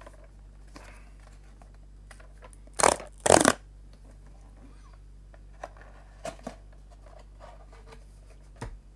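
Cardboard product box being opened by hand: two loud, short rasping sounds close together about three seconds in, then light rustles and clicks of packaging being handled.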